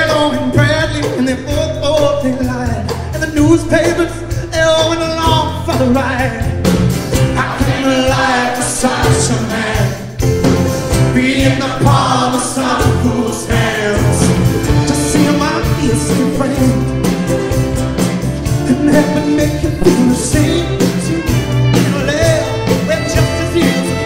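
Live acoustic folk-rock music: a strummed acoustic guitar and a violin playing melody, with singing voices.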